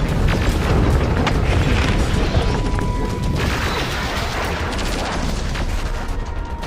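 Dense sci-fi battle sound design: a continuous low booming rumble layered with mechanical clanks and sharp impacts, under music. A thin steady tone sounds for about a second partway through.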